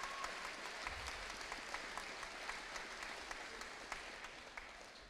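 Audience clapping, a patter of many hands that fades away toward the end.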